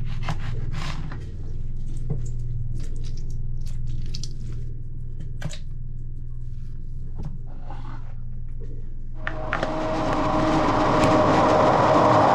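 Soft knocks and handling sounds of fruit being prepared, then a countertop blender switches on about nine seconds in and runs loudly, blending a green smoothie.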